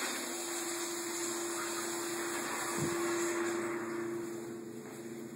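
An electric blower running steadily: an even rushing whir with a steady hum under it, as from a restroom hand dryer or ventilation fan.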